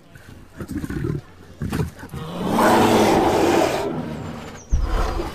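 Bear growling: a few short rough growls, then a longer, louder growl about halfway through. A brief low thump near the end.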